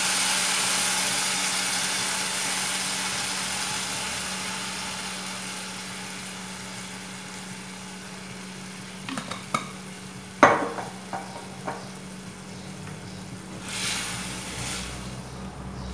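Tomato sauce sizzling as it is poured from a glass bottle into a hot frying pan of fried garlic and onion, the sizzle fading over several seconds. About nine to twelve seconds in come a few sharp clicks and knocks, then a wooden spatula stirring the sauce in the pan.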